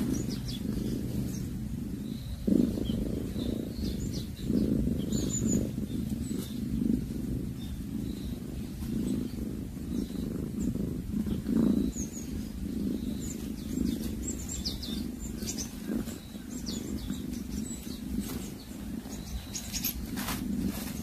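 Domestic cat growling low over a mouse it has caught, a rough rumble that swells and eases unevenly.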